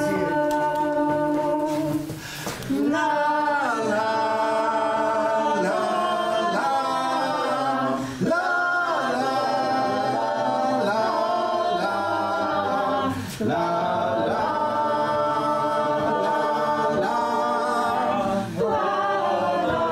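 A small mixed choir singing a cappella: slow phrases of long held chords, each about five seconds, with brief breaks between them.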